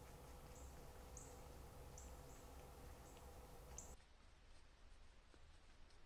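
Near silence with faint, short, high chirps repeating about every second, which stop abruptly about four seconds in.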